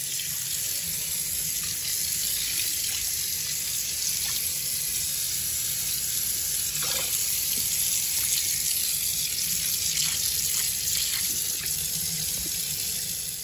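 Tap water running steadily into a sink and splashing over raw pork ribs and ribeye steaks as they are rinsed.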